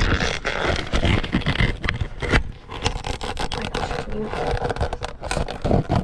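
Close handling noise of a plastic container and terrarium being worked: dense rustling and scraping with many sharp clicks and knocks.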